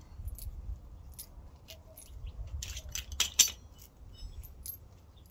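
Loose nuts, bolts and small hand tools clinking against each other and the concrete as they are picked over by hand: an irregular scatter of metallic clicks, busiest and loudest a little past halfway, over a low steady rumble.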